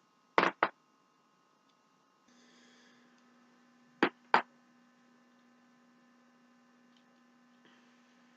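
Neck joints cracking: two quick pops close together about half a second in, and another pair of pops about four seconds in.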